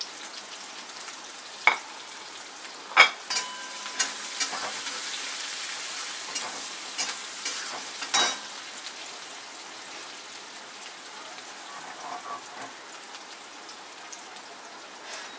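Chopped onion sizzling as it fries in hot oil with cumin, mustard seeds and curry leaves in a metal wok. A slotted metal spatula stirs it, clicking and scraping against the pan several times in the first half. The sizzle is louder from about three to eight seconds, then settles lower.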